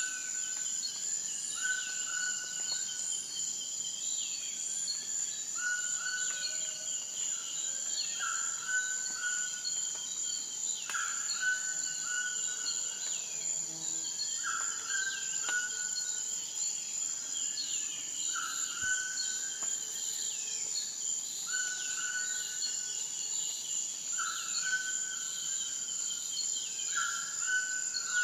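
Countryside chorus of insects and birds: a steady high-pitched insect drone, a short call repeating about every second and a half, and scattered chirps that fall in pitch.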